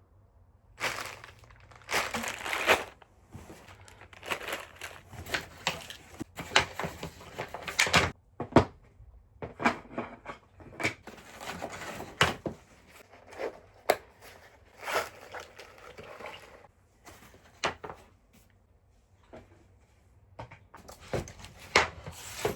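Packaging being handled and pulled apart while a vanity is unboxed: irregular bursts of crinkling and rustling, with sharp clicks and knocks among them.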